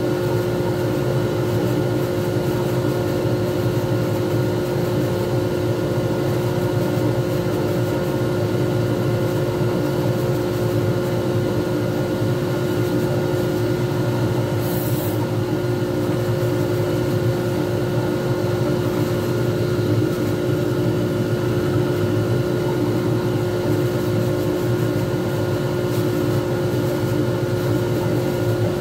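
Small lathe running steadily with a pen blank spinning between centres, giving a constant motor whine over a low hum. A brief high hiss comes about halfway through.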